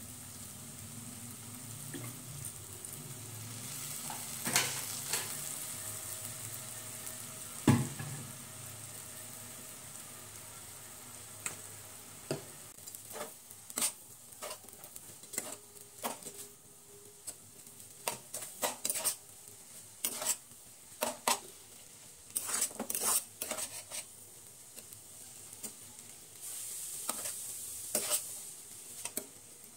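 Noodles sizzling in a frying pan while a metal spatula and spoon stir and toss them, with repeated clicks and scrapes of the utensils against the pan. One sharp knock comes about eight seconds in, and the clicks come thick and fast in the second half.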